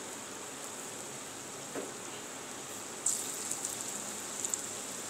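Hot refined oil sizzling steadily in a kadhai as jackfruit pakora batter is dropped in to deep-fry. About three seconds in, a fresh dollop hits the oil and louder crackling and popping follows.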